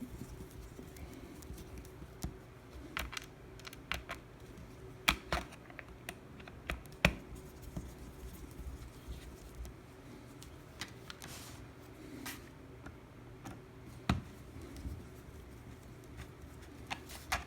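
Scattered small clicks and taps of a screwdriver and the plastic laptop case as the bottom cover's captive screws are tightened, a few sharper knocks among them.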